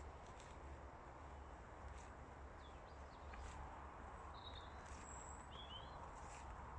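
Faint outdoor quiet with a steady low rumble, a few short, distant bird chirps, and soft footsteps on a dirt path about every second and a half.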